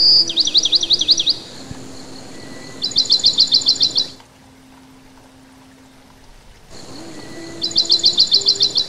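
Bird chirping in three quick trills of about ten sharp high notes each: one at the start, one about three seconds in, and one near the end. A faint low held tone sounds underneath.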